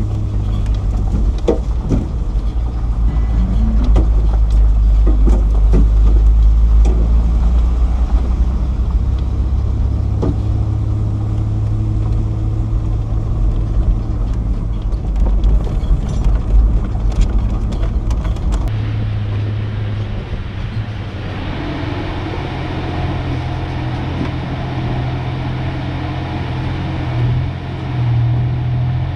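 A 1993 Ford Ranger pickup driving slowly on a dirt trail: a steady low engine drone with scattered short knocks. The sound changes abruptly about two-thirds of the way through.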